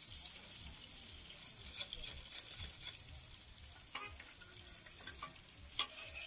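Chicken pieces sizzling in oil on a large flat griddle. From about two seconds in, a metal spatula scrapes and clicks against the griddle a number of times.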